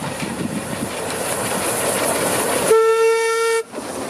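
Narrow-gauge steam train passing close by, its wheels clicking over the rails, with one loud, steady-pitched steam-whistle blast of about a second a little under three seconds in.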